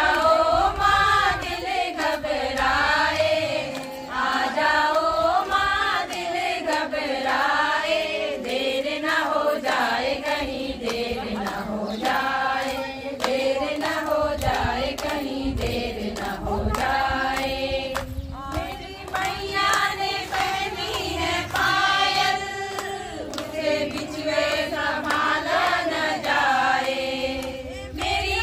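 A group of voices singing a Kumaoni devotional bhajan together, a melody that rises and falls in repeating phrases, with a steady beat behind it.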